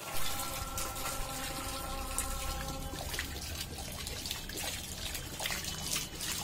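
A thin stream of water trickling and pouring from above, with a Saint Bernard snapping and lapping at it, splashing now and then. A faint steady hum of several tones stops about three seconds in.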